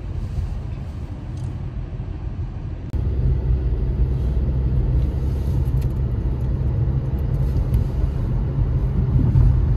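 Low, steady road and engine rumble heard inside a moving car's cabin, stepping up suddenly to a louder rumble about three seconds in.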